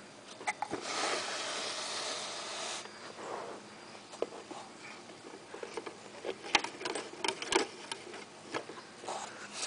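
Handling noises from a small homemade brass wobbler engine being moved about and fitted with tubing: a rushing noise for about two seconds starting about a second in, then scattered light clicks and knocks.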